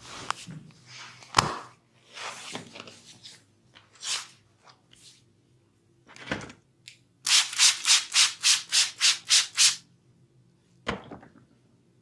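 Massage hand strokes rubbing over skin, with a sharp smack about a second and a half in, then a quick even run of about ten rubbing strokes, roughly four a second, and a last short smack near the end.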